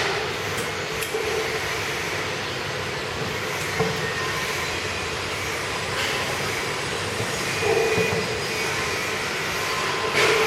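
Powder grinding machine running steadily, with a constant hum under a wide whirring hiss and a few small knocks.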